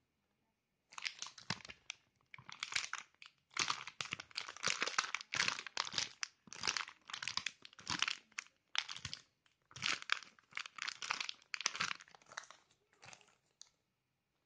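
Plastic packaging crinkling in a long run of quick handling bursts, stopping shortly before the end.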